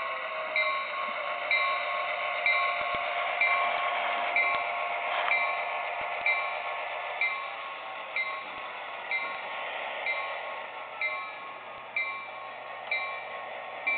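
A bell ringing steadily about once a second over a continuous hiss, on an HO scale model train layout as a passenger train runs past. The hiss eases off a little about halfway through.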